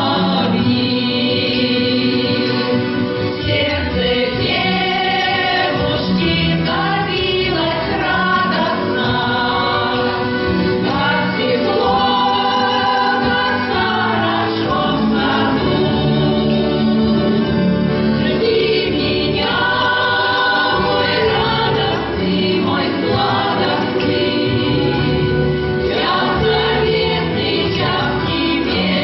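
A folk choir singing with instrumental accompaniment.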